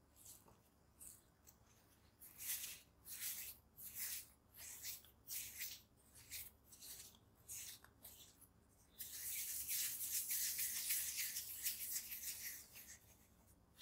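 Hands working a small piece of soft bread dough on a marble countertop: a string of short rubbing swishes, about one or two a second, as the dough is folded and pressed. About nine seconds in this turns into a steady, denser rubbing for about four seconds as the dough is cupped and rolled into a smooth ball against the counter.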